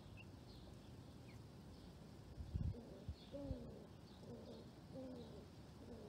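A dove cooing: a short run of low, wavering coos in the second half, over faint high chirps from small birds. A few dull low thumps about halfway through are the loudest sounds.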